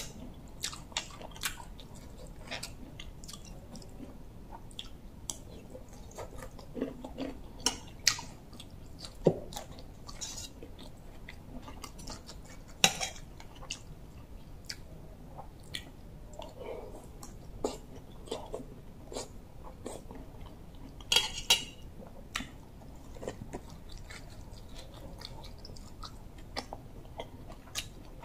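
Close-up chewing of bamboo shoot soup, with scattered sharp clicks and taps of a metal spoon against the bowl, a quick cluster of them about two-thirds of the way through.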